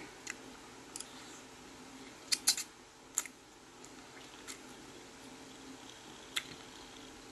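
Close-up eating sounds of a person chewing ramen noodles: scattered short, sharp mouth and fork clicks, about seven in all, the loudest two close together about two and a half seconds in.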